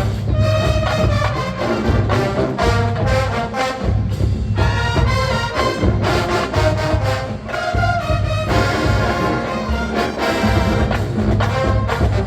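College marching band playing a funk arrangement at full volume, brass carrying the tune over pulsing low brass and drums.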